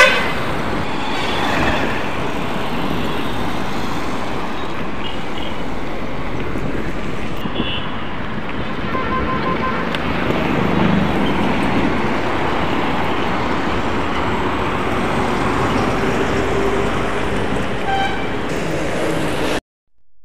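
Highway traffic passing: a steady rush of cars, trucks and motorbikes, with a horn blast at the start and a few short, fainter horn toots later. The sound drops out briefly near the end.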